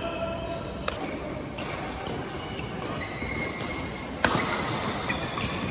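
Badminton rackets striking a shuttlecock, about four sharp smacks with the loudest a little after four seconds in, and short shoe squeaks on the court mat between the strokes.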